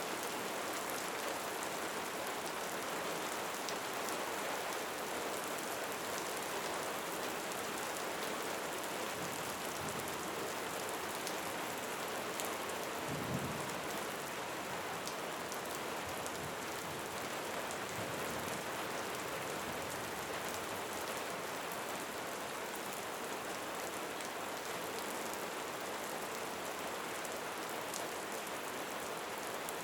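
Steady rain falling and pattering on surfaces, with one brief low thump about thirteen seconds in.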